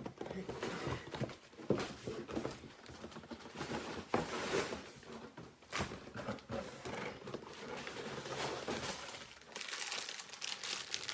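Plastic bags of LEGO pieces crinkling and rustling as they are handled, with a few sharper clicks.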